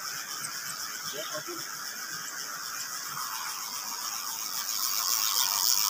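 Steady rushing of a swollen, flowing stream, with a faint voice briefly in the background about a second in.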